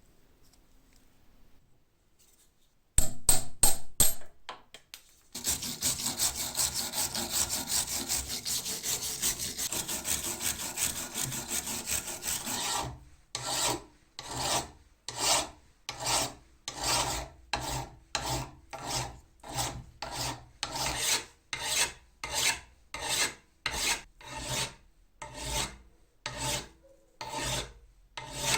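Rust being scrubbed by hand off an old steel cobbler's hammer head, an abrasive rubbing and scraping. After a few short loud strokes it goes into rapid continuous scrubbing, then about halfway through slows to separate even strokes about one a second.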